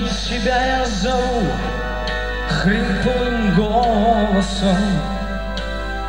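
Live band music: a man singing a drawn-out, wordless-sounding melodic line over sustained keyboard chords, pausing for about a second in the middle.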